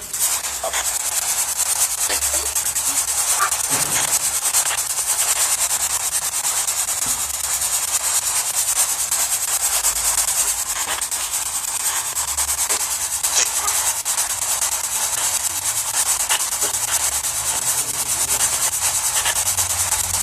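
Loud, steady static hiss with fine crackling running through it, strongest in the high treble.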